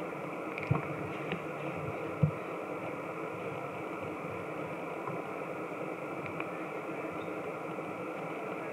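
Steady background noise that stays even throughout, with three soft knocks in the first couple of seconds, the last the loudest.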